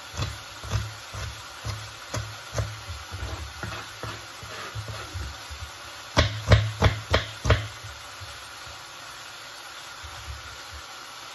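Kitchen knife chopping an onion on a plastic cutting board: sharp knocks about two a second, then a louder, quicker run of about five chops a little past halfway, after which the chopping stops.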